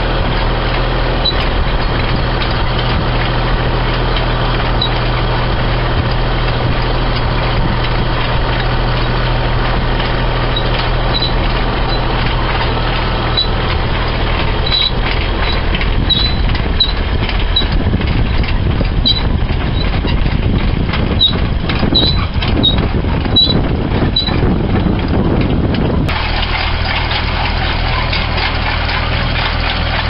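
Farm tractor engine running steadily while pulling a chain-elevator potato digger. The digger's steel chain and links rattle and clatter as soil and potatoes shake through it, thickest through the middle, and the sound changes abruptly near the end.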